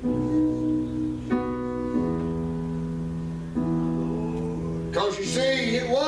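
Church keyboard playing slow held chords that change every second or two. A voice over the microphone comes in about five seconds in.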